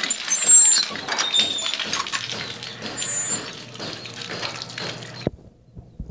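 Water running and splashing, with short high squeaks and a low steady hum, as birds bathe and flap on a wet floor. The water and hum cut off suddenly about five seconds in.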